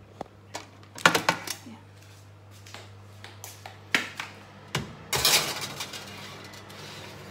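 Metal baking tray clattering as it is lifted and slid onto an oven's wire rack: a quick cluster of clanks about a second in, single knocks near four seconds, then a scraping rattle of tray on rack a little after five seconds.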